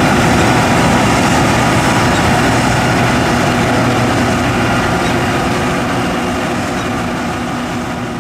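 John Deere S550 combine running steadily as it harvests grain, a dense engine-and-machinery noise that slowly fades over the last few seconds.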